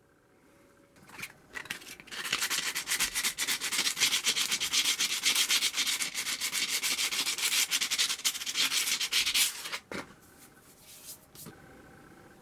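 Rapid back-and-forth hand scrubbing strokes against the surface of a cast-iron kettlebell, starting about two seconds in and stopping abruptly near ten seconds, with a few single scrapes before and after.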